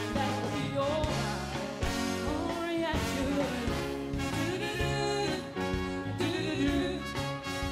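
A singer and backing band performing a song, the voice holding long notes over the instruments.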